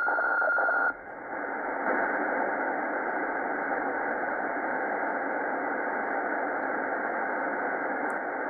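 Tecsun S-2200x shortwave receiver in single sideband: the steady tone of a weather fax transmission on about 9110 kHz over static for the first second, then it cuts off as the dial is turned away, leaving an even hiss of shortwave band noise while the receiver is tuned up through the band.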